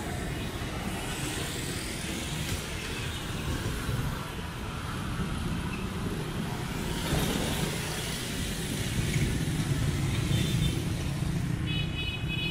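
Street traffic in which motorbikes and cars pass, giving a steady mix of engine and tyre noise, with a short high tone near the end.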